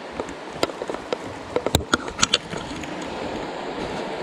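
Creek water lapping and running steadily at the bank, with a quick cluster of sharp clicks in the middle.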